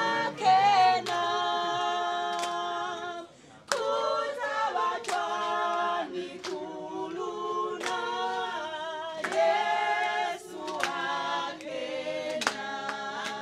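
An unaccompanied choir singing, several voices holding notes together in chords, with a short break about three seconds in.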